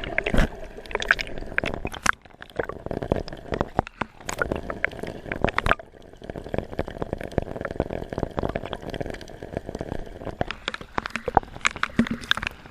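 Seawater splashing and gurgling close to the microphone, with many irregular sharp splashes.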